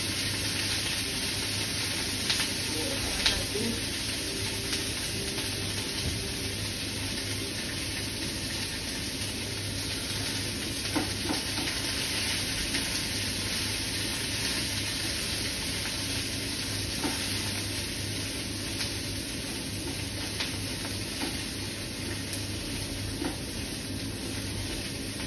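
Broccoli sizzling in a very hot frying pan with a little olive oil, a steady frying hiss. Tongs turning the florets make a few short clicks against the pan.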